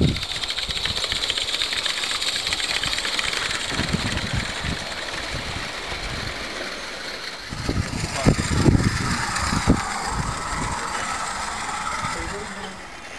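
A small 16mm-scale garden railway train running along its track, with a steady, fast rattling beat. Low rumbling thumps come through just after the middle.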